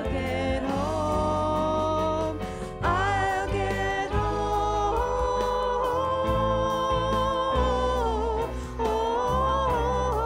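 A woman singing lead in a gospel-style pop song, holding long, wavering notes, over bass guitar and drums.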